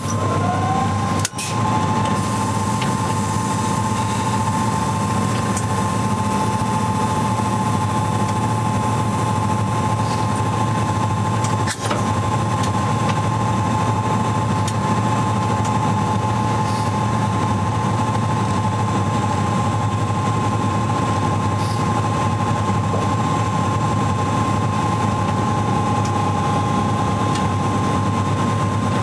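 Cab sound of a BB 17000 electric locomotive: its electrical equipment runs with a steady low hum and a high whine. A second whine rises in pitch over the first second and then holds steady. Sharp clicks come about a second in and again around twelve seconds.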